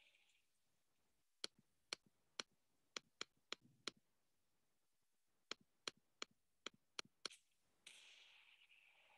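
Sharp, short clicks over near silence, in two runs of about three a second: seven clicks, a pause of a second and a half, then six more. Near the end a hiss comes in and fades away.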